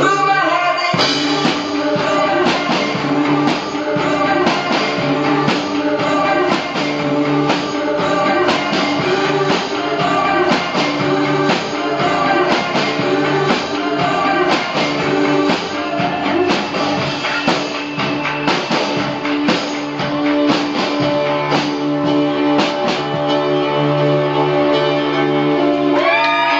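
Rock music with a singing voice and guitar, a drum kit played along with it, its hits sounding throughout.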